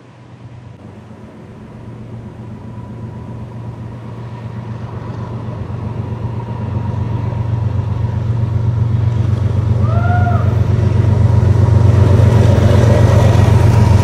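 BNSF freight train's diesel locomotives approaching, a deep engine drone that grows steadily louder and is loudest as they pass close by near the end. A brief high rising-and-falling call sounds about ten seconds in.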